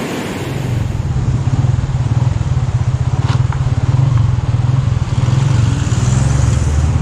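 Motorcycle engine running steadily at low road speed, a pulsing low throb. It starts about half a second in, over the rush of a fast river.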